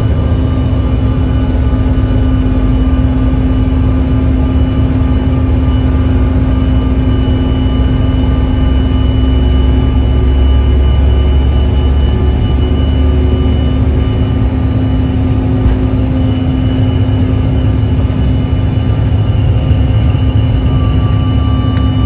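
Jet airliner's engines at takeoff power, heard from inside the cabin: a loud, steady roar with a deep rumble and a thin high whine, through the takeoff roll and liftoff.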